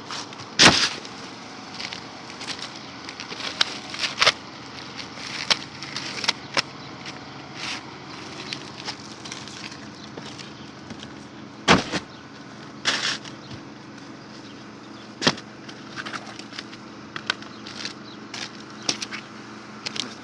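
Pneumatic roofing nail gun shooting nails into asphalt shingles: sharp cracks at irregular intervals, a few loud and many lighter, among knocks of shingles being handled, over a steady low hum.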